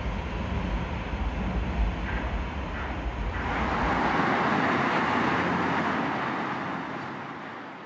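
Vehicle and traffic noise. A deep low rumble changes about three seconds in to a passing vehicle's hiss, which swells to its loudest midway and fades away near the end.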